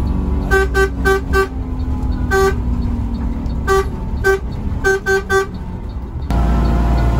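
A bus horn tooting in short single-pitch blasts, heard from inside the bus over its engine: four quick toots, one longer one, then two and then three more. Near the end the sound switches abruptly to a louder, steady mix.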